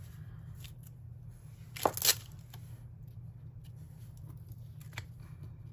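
A paper sticker being peeled up off a planner page: a short ripping peel about two seconds in, and a fainter paper rustle near the end, over a steady low hum.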